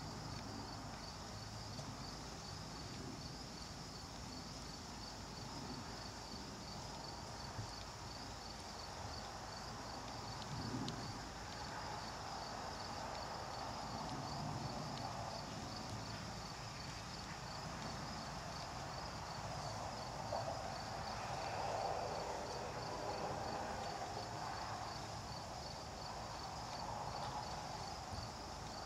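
An insect chirping steadily at a high pitch in an even, fast pulse, over a faint low murmur that swells about two-thirds of the way through.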